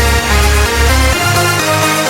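Electronic dance background music with sustained synth chords; the deep bass drops out about a second in.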